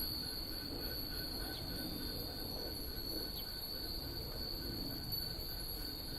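A steady high-pitched insect trill, like crickets, with the temple's wind bells (fūrin) tinkling faintly under it.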